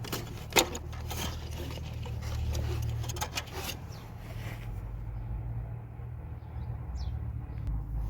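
Light metallic clicks and clinks from engine parts and tools being handled during the teardown, most of them in the first four seconds, over a steady low hum.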